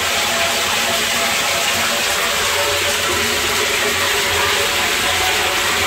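Water pouring steadily into a plastic water tank from its float-valve inlet, a constant rushing splash heard from inside the closed tank.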